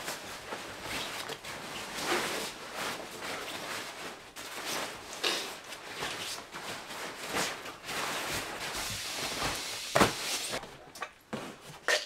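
Quilted sleeping bag rustling and swishing as it is handled and spread out on a bunk, in an irregular run of soft fabric sounds, with one sharp knock about ten seconds in.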